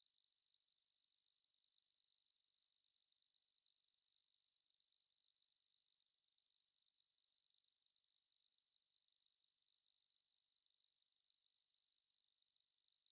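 A synthesized high-pitched pure tone imitating tinnitus ringing in the ears, held perfectly steady without any change in pitch or loudness.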